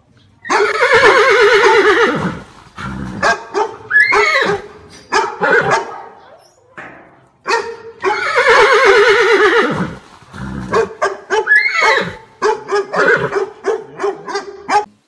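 Recorded horse whinnying sound effect: a long wavering whinny followed by a string of shorter calls, the whole sequence playing twice.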